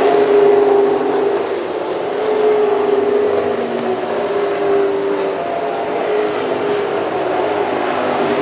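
Several race car engines running together as a pack laps a short oval track: a steady, loud drone that wavers a little in pitch.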